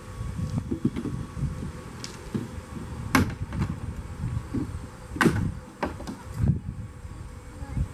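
Wind buffeting the microphone, with a few sharp knocks and clatters of children's play kitchen dishes being handled, the loudest a little after three seconds and again a little after five seconds.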